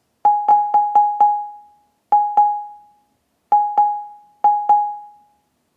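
Short electronic beeps at a single mid pitch from the browser-beep web library, each starting with a click and fading out. A quick run of five comes first, then three pairs spaced about a second apart. The beeps mark the sort visualisation's index stepping, ringing twice per step.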